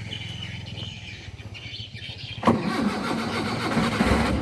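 Toyota Kijang 4K four-cylinder car engine powering a klotok boat being started: it catches suddenly about halfway through and runs, getting louder near the end.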